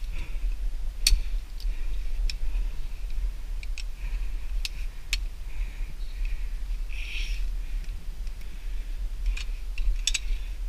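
Scattered sharp clicks and light clinks over a steady low rumble, with a short rustle about seven seconds in.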